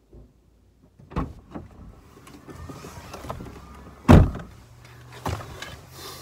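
Someone getting into a car's driver seat: a few knocks and the rustle of a jacket, then a loud thud of the car door shutting about four seconds in, and a smaller knock a second later.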